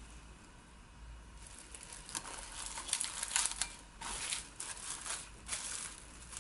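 Plastic cling wrap crinkling as it is pulled and stretched over a glass mixing bowl: a run of crackly rustles that begins about a second and a half in and stops shortly before the end.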